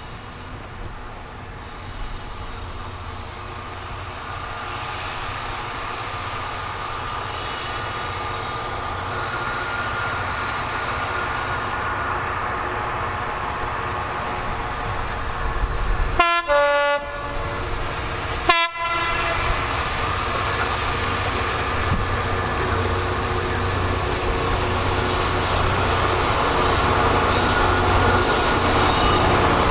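Class 66 diesel-electric locomotive, with its two-stroke V12 engine, approaching and growing steadily louder. About halfway through it sounds its horn, first a blast lasting most of a second and then a short toot about two seconds later.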